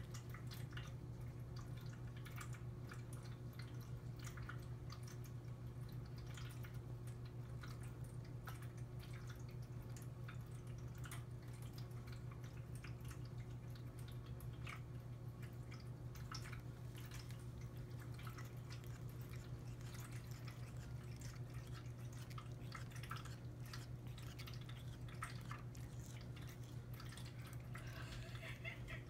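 A cat air-chewing against a plastic bread bag: irregular wet clicks and smacks of her mouth and jaws chewing at nothing, with soft crinkles of the bag. A steady low hum runs underneath.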